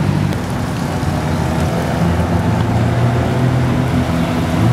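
Modified Japanese performance cars' engines and exhausts running loudly as they drive past one after another, first a Nissan S14 Silvia, then an R33 Nissan Skyline GT-R. The engine note changes about a third of a second in and again around two seconds in.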